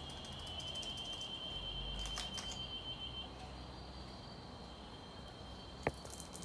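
Insects trilling steadily at a high pitch, one wavering trill stopping about three seconds in while others go on. A single sharp click about six seconds in.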